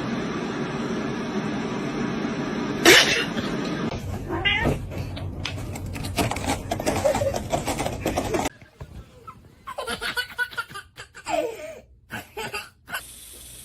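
Cats meowing and yowling in a run of short clips, with a sharp, loud burst of sound about three seconds in.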